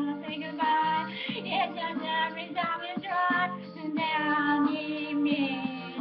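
A woman singing a pop song in several short phrases over a steady instrumental backing.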